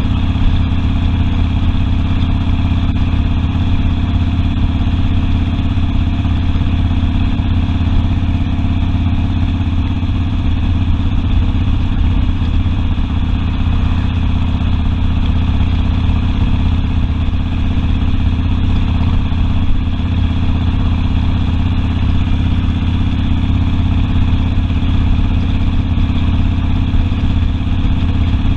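Harley-Davidson Sportster V-twin engine running at a steady pace, heard from the rider's seat while cruising.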